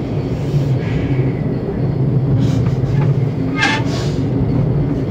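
Funicular railway car running up its inclined track, a steady low rumble heard from inside the car, with a brief higher-pitched noise about three and a half seconds in.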